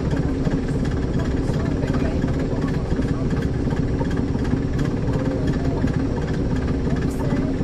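Caterpillar C13 ACERT diesel engine of a NABI 40-SFW transit bus running steadily, heard from the rear seats inside the bus.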